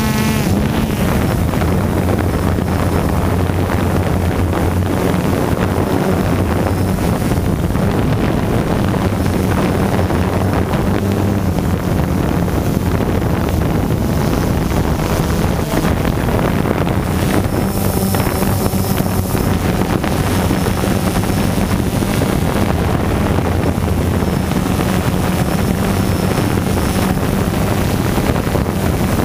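DJI quadcopter drone's motors and propellers buzzing steadily, heard close up from the drone's own camera, a constant low hum over a hiss.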